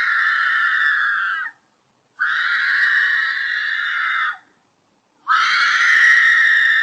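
A woman screaming in distress: three long, high-pitched screams of about two seconds each, with short silent gaps between them, each dropping in pitch as it ends.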